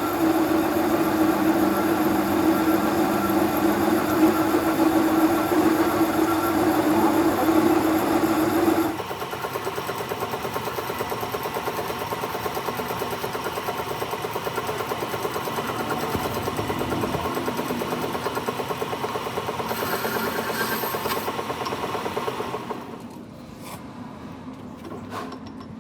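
Workshop machine running steadily with a loud hum. About nine seconds in it drops to a lighter, evenly pulsing run, and it fades away near the end.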